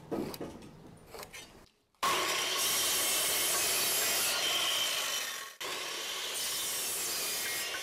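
A steady rasping, rubbing noise starts abruptly about two seconds in, breaks off for a moment a few seconds later, then carries on a little quieter.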